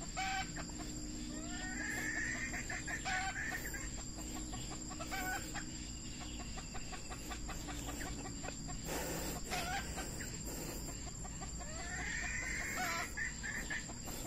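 Red junglefowl rooster crowing twice, short rising crows about two seconds in and again near the end, with softer clucks between. A brief burst of noise about nine seconds in.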